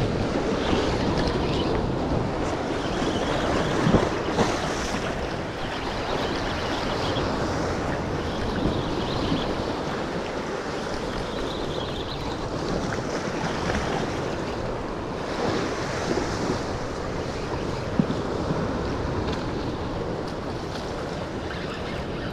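Ocean surf washing against a rock ledge, with steady wind noise on the microphone and one sharp knock late on.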